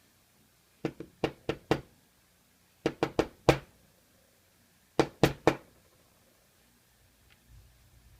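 Yale euro cylinder lock rapped against a hard surface in three quick runs of sharp knocks, about five, then four, then three, to shake the pins out of its plug while it is being gutted.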